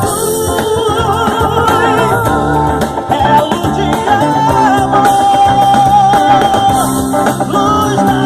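A band playing with drums, bass, electric guitar and keyboards between sung lines, a wavering melody line holding one long note for a few seconds in the middle.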